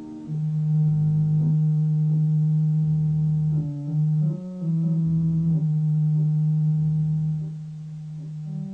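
Music score of sustained synthesizer-like tones: a strong held low note under slowly changing higher notes, with a deeper bass note coming in four times.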